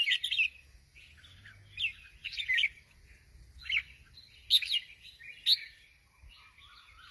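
Red-whiskered bulbul singing: short, bright warbled phrases repeated about once a second, with softer, lower twittering near the end.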